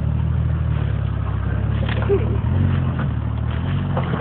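Jeep engine running steadily at low revs while crawling over the trail, picking up slightly about halfway through, with a few faint knocks.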